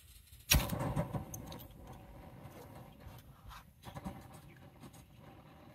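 A sudden knock about half a second in, followed by light clattering and rattling.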